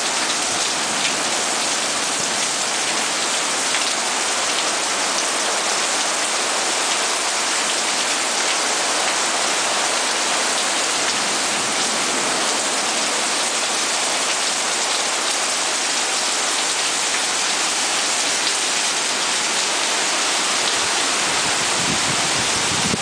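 Heavy rain pouring down steadily, a dense, even hiss of downpour.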